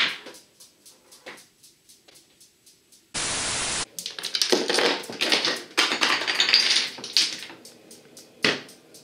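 Small wooden and cardboard pieces of a homemade chain-reaction machine clattering and toppling, with dominoes falling: a dense run of rapid clicks and rattles lasting a couple of seconds, then one sharp knock near the end. Shortly before the clatter comes a short burst of flat TV-static hiss with abrupt edges, under a second long.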